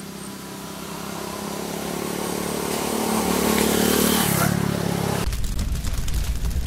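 Motorcycle engine approaching and riding past, growing louder to a peak about four seconds in, its pitch dropping as it goes by. About a second later it cuts to a loud, deep rumbling boom with crackles.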